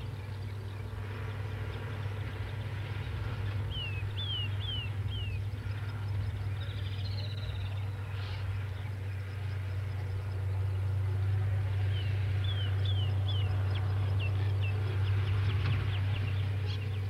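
A bird calling in runs of three or four short, high, falling notes, several times, over a steady low hum.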